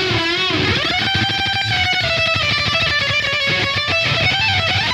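Distorted electric lead guitar through the RedTone amp-sim plugin, playing a solo over drums and bass: a wavering vibrato note, then a bend up about a second in to a long held note.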